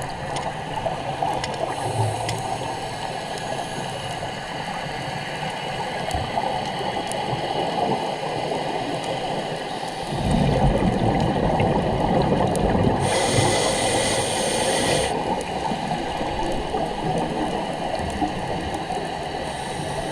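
Underwater sound on a scuba dive: a steady rushing water noise with scattered faint clicks. A low gurgling swell comes in about ten seconds in, and a brief hiss lasts about two seconds a little later.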